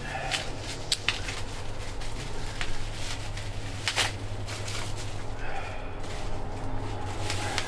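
Cardboard packaging being handled and opened: scattered rustles and sharp knocks and taps, over a steady low hum.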